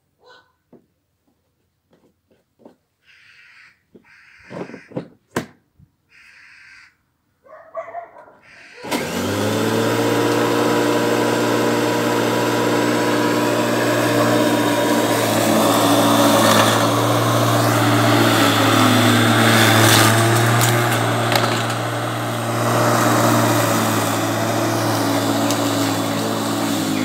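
Bosch Rotak 34 corded electric lawn mower switched on about a third of the way in: its motor spins up quickly, then runs with a steady hum as it is pushed through the grass, the pitch dipping slightly now and then. Before that there are only a few faint clicks.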